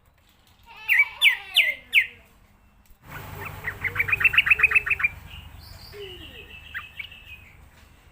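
Yellow-vented bulbul calling. About a second in come four loud, sharp chirps. From about three seconds there is a fast run of about a dozen clipped notes, and then softer, burbling notes.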